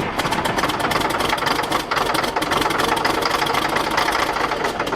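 Caterpillar D6D dozer's six-cylinder diesel running rough with a fast, loud clatter just after catching from a cold start after years of sitting. Not all six cylinders are firing yet.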